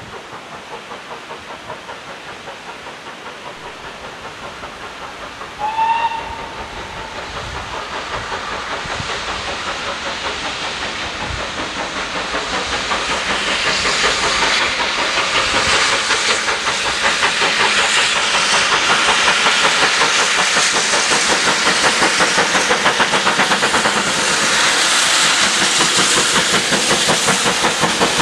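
Steam locomotive approaching with its train, its exhaust beats and hiss growing steadily louder. It gives one short whistle about six seconds in.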